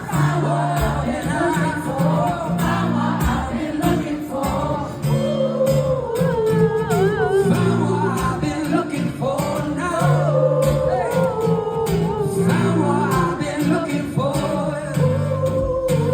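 Live acoustic guitar strumming chords under sung melody, with many voices singing together like a crowd singing along.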